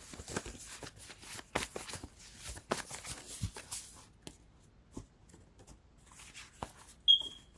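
Tarot cards being shuffled by hand: a quick run of soft flicks and slaps for about four seconds, then a few scattered taps. A short high squeak near the end.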